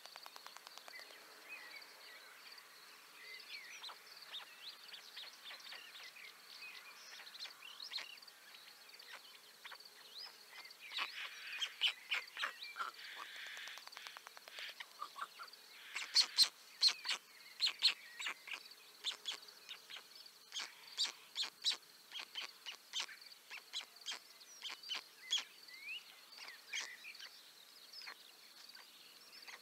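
Birds chirping and calling: many short call notes, some sliding in pitch, coming thicker in the second half.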